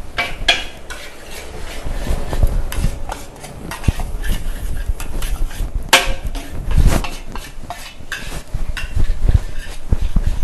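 Metal spatula scraping and clanking against a large wok as fried rice is stirred fast over a high flame, with the food sizzling. The loudest clank comes about six seconds in.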